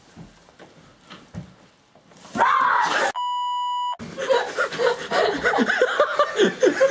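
A sudden startled shout, cut off by a censor bleep: a steady pure tone lasting about a second, covering a swear word. Agitated shouting follows in short rising and falling bursts.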